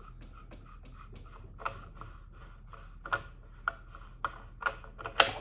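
Plastic impeller of a Waterway SMF pool pump being spun off its threaded motor shaft by hand while a wrench holds the shaft: a run of light mechanical clicks, about three or four a second, with louder sharp ticks in the second half, the loudest near the end.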